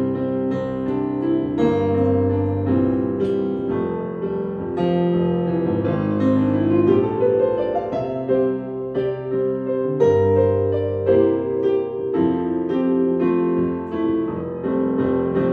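Kurzweil digital stage piano playing chords and a melody line of struck notes, each note ringing on.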